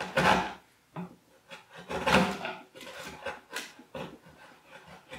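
Hand chisel paring wood, a series of irregular scraping strokes as the stepped ridges left by the table saw are shaved flat on the bevelled corner of a wooden table foot.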